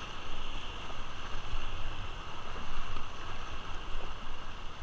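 Whitewater rapids rushing and splashing around an inflatable raft: a steady, even rush of water, with low rumbling buffets on the microphone.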